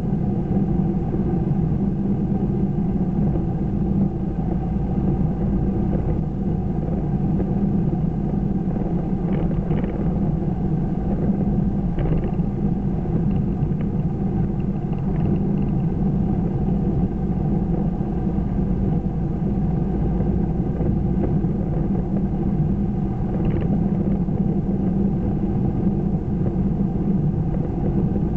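Steady low drone of a car cruising at an even speed, heard from inside the cabin: engine and road rumble, with a few faint ticks now and then.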